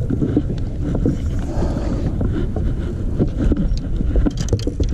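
Wind buffeting the microphone aboard a small fishing boat: a steady, uneven low rumble with scattered small clicks and knocks.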